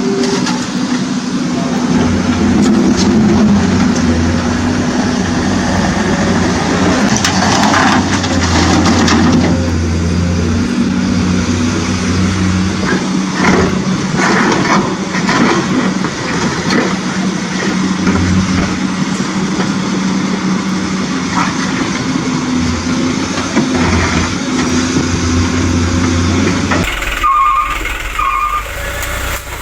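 Radio-controlled construction vehicle running with a steady engine-like drone, with stones clattering now and then. Near the end the sound changes abruptly and a few short beeps sound.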